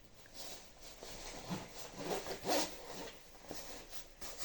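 A jacket's double zipper being worked and pulled closed, with fabric rustling: several raspy zipping strokes, the loudest about two and a half seconds in.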